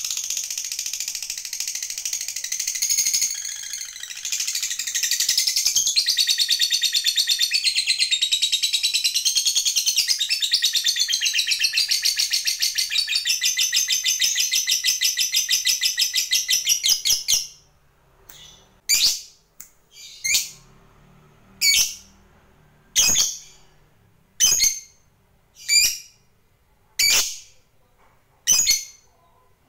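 Fischer's lovebird giving the long, rapid, high-pitched chattering trill (ngekek panjang) for about seventeen seconds, then switching to single short sharp calls about every second and a half, eight in all.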